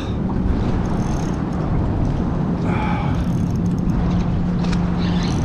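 Steady rushing of water past a moving kayak's hull mixed with wind noise on the microphone, under a steady low hum.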